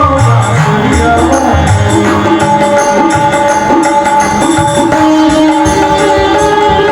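Indian devotional bhajan music: a melodic instrument playing over a steady tabla and percussion rhythm.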